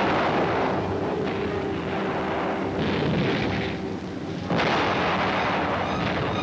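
Explosions rumbling one after another, with a sharp new blast about four and a half seconds in, over a steady drone.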